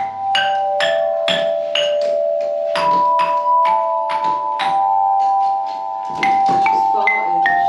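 Metal chime tubes on a music barrel struck one at a time with a mallet, picking out a simple tune. The notes come about two a second and a little quicker near the end, and each one rings on under the next.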